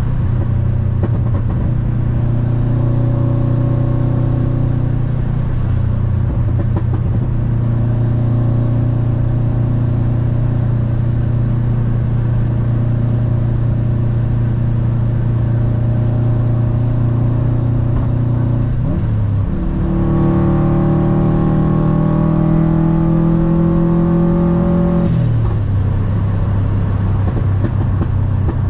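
Subaru WRX STI's turbocharged flat-four engine with an Invidia aftermarket exhaust, heard from inside the cabin: a steady drone at highway cruising speed. About two-thirds in the note dips briefly, jumps to a higher pitch and climbs slowly under acceleration for about five seconds, then drops back to a lower steady note as the next gear is taken.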